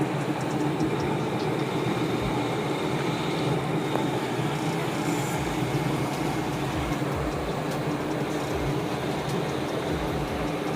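Front-load washing machine running steadily: a constant mechanical hum with a steady low tone.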